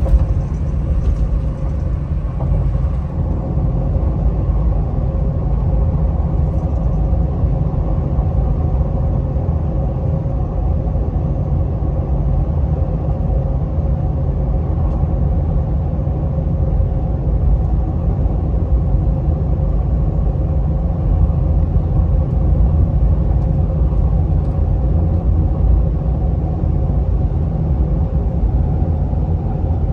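Inside the cab of a 2015 Ford F250 with a 6.7 Powerstroke V8 turbodiesel cruising steadily at 70 mph through a 5-inch exhaust with no muffler and no resonator. The sound is an even, low rumble with a faint steady tone above it, and it holds level the whole time.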